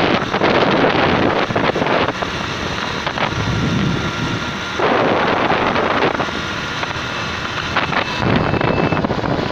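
Wind rushing over the microphone of a moving motorbike, with road and engine noise beneath it, gusting louder about five seconds in.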